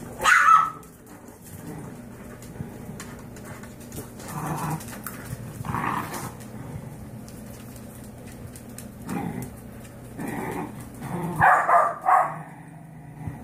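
Yorkshire terrier mother and her five-week-old puppies: growls, snaps and short high yaps in several bursts, loudest about half a second in and again near the end. It is the mother warning off puppies that are pestering her.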